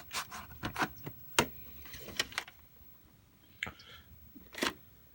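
Handling of a VHS cassette and its case: a scattering of short sharp plastic clicks and knocks, two standing out about a second and a half in and near the end, with light rustling between.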